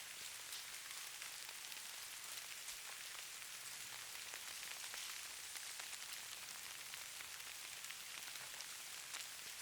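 Steady soft hiss of falling snow, strongest in the high end, with many faint tiny ticks of it landing.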